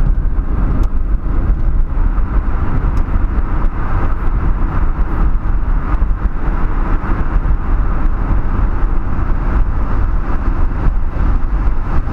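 Steady engine and tyre road noise inside the cabin of a car driving at highway speed.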